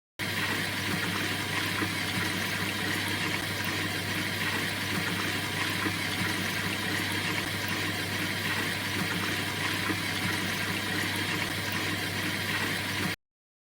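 LG washing machine running in its wash cycle: a steady motor hum under a constant rush of water. It cuts off abruptly near the end.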